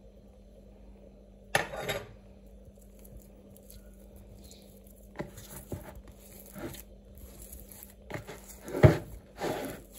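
Soft enriched brioche dough being worked by hand in a bowl with a lump of butter: a short scrape about one and a half seconds in as the butter goes in with a spoon, then sticky squelches and slaps as the hand squeezes the butter into the dough, the two loudest near the end.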